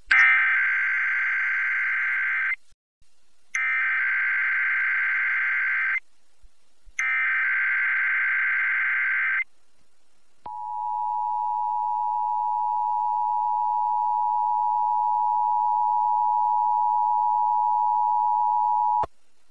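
Emergency Alert System test signal on a radio broadcast: three bursts of SAME digital header data, each about two and a half seconds with about a second's gap between them, then the steady EAS two-tone attention signal held for about eight and a half seconds before cutting off abruptly.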